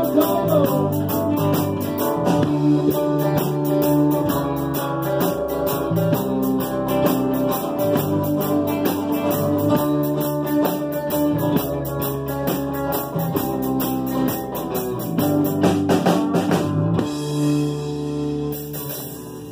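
Live rock band playing with acoustic guitars, electric bass and a drum kit keeping a steady beat. About three seconds before the end the drums stop and a last chord rings out.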